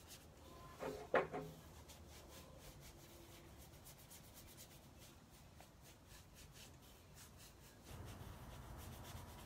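Paintbrush scrubbing wet clay paint across a wooden dresser: a run of faint rubbing strokes, blending two colours together. A brief pitched sound stands out about a second in.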